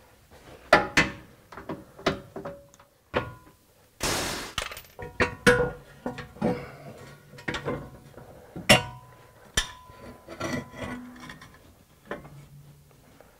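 Hand tools working the bolts of a Jeep Wrangler JK's steel skid plate: irregular metallic clinks, clanks and sharp knocks, some ringing briefly, with a short rasping burst about four seconds in.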